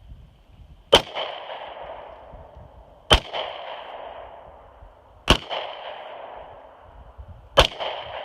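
Four shots from a Glock 43 9mm pistol, spaced about two seconds apart. Each is followed by a ringing tail that lasts over a second.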